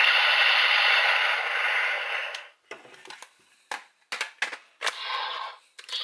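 Electronic sound effect from the DX Progrise Key Connector toy gun's speaker, cutting off about two and a half seconds in. It is followed by a series of sharp plastic clicks and snaps as the toy's parts are worked by hand.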